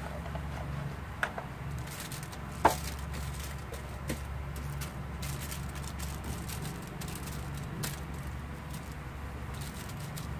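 Light clicks and taps of cut vegetables being moved from a metal baking tray onto a foil-lined pan and pushed into place by hand, the sharpest about two and a half seconds in, over a steady low hum.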